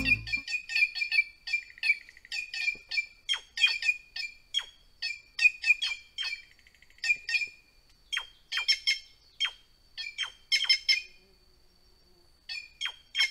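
White-naped jay (gralha-cancã) calling: a long string of short, sharp calls that drop in pitch, given several a second in bouts, with a brief lull near the end before a last few calls.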